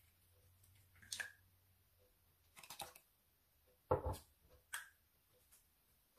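Plastic measuring spoons being handled over a saucepan: a few short, light clicks and rattles, with a louder knock about four seconds in.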